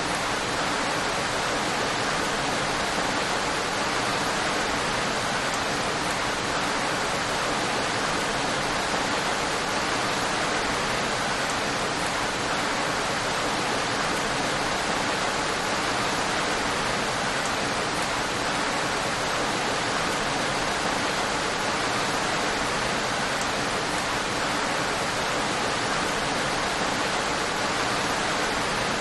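Steady, even rain falling, a constant wash of noise with no individual drops standing out.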